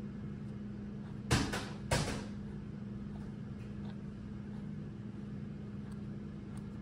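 Weber Workshops Moonraker WDT distribution tool being turned by hand on a portafilter, giving two short scraping rustles a little over half a second apart, over a steady low hum.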